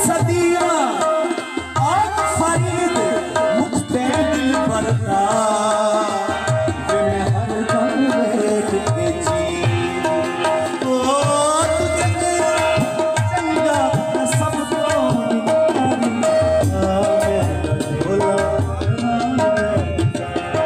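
Qawwali music: tabla playing a fast, busy rhythm under harmonium, with a melody line that slides up and down in pitch above.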